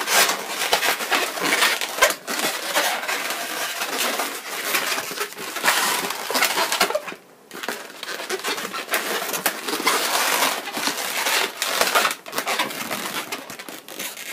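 Latex modelling balloons squeaking and rubbing against each other as they are twisted and pressed together by hand, with a brief pause a little past seven seconds in.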